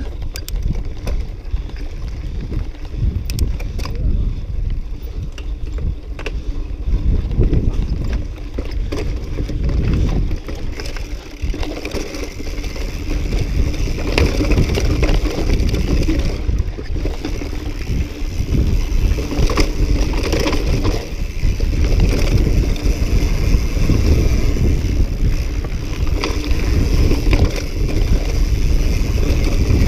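Mountain bike riding fast down a rough, rocky dirt trail: a steady low rumble of wind on the microphone under a constant clatter of tyres, chain and frame over stones, getting louder about halfway through.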